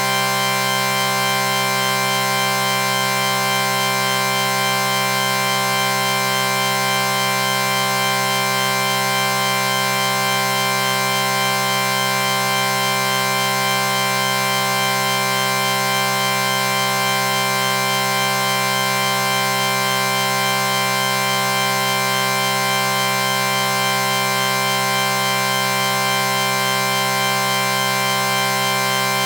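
A chord sound effect held without a break: several steady pitches sounding together, unchanging in pitch and loudness.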